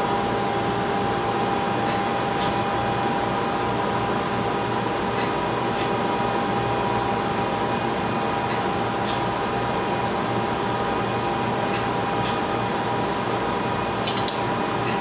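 Steady hum of laboratory equipment and ventilation with several fixed tones in it. Faint light clicks from handling at the lab bench come in pairs about every three seconds.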